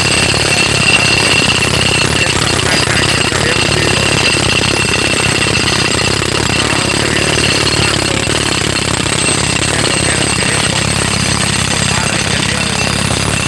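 Pneumatic jackhammer breaking up a concrete road slab, hammering continuously in a rapid, even pounding. A steady high ringing tone sits over the hammering for the first half and fades after.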